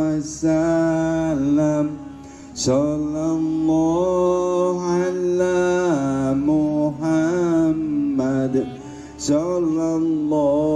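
Sholawat chanted over a PA system: a voice holding long, drawn-out notes that slide and bend between pitches, with short breaks about 2 seconds in and again near 8.5 seconds.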